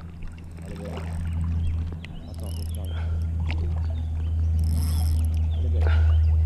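River water swirling and lapping close to the microphone over a steady low rumble, which grows slightly louder toward the end. Faint bird chirps, and a brief high hiss about five seconds in.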